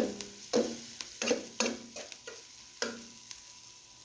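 Onion, garlic and pimento frying in hot oil and butter in a pot, a steady sizzle, with a spoon stirring and scraping the pot in strokes about every half second that stop near the end.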